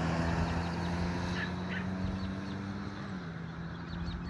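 Diesel locomotive engine running steadily as the train approaches, its engine note dropping slightly about three seconds in. Birds chirp briefly a couple of times.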